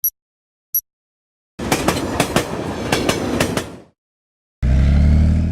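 Short high electronic beeps, then about two seconds of clattering engine noise with sharp knocks, then after a gap about a second of a steady low drone from the generator's Yanmar L100 single-cylinder diesel running, cut off abruptly.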